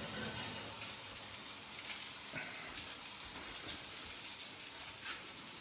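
Cod fillet sizzling steadily in a hot frying pan on a gas hob, with a few faint light clicks.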